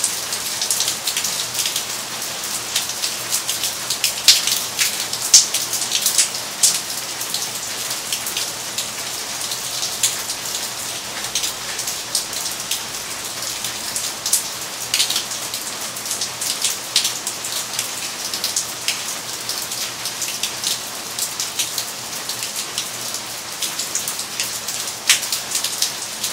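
Steady rain falling: a constant hiss with frequent sharp drops tapping close by.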